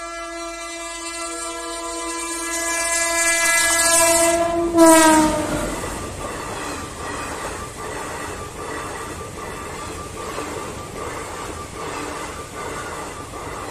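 Teesta Torsa Express passing at speed: the locomotive's horn sounds one long blast that grows louder as it approaches and drops in pitch as the engine goes by, about five seconds in, at the loudest moment. Then the coaches rush past, their wheels clattering in an even rhythm.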